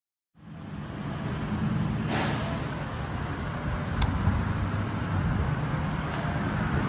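Steady low rumble of vehicle noise, with a short swish about two seconds in and a sharp click about four seconds in.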